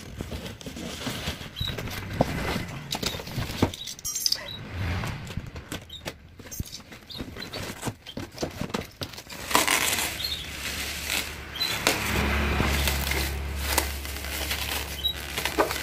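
Cardboard box and clear plastic wrapping being handled: scraping, rustling and crinkling as a large 18-inch speaker driver is unpacked, louder crinkling from about two-thirds of the way in, with a low rumble under the last few seconds.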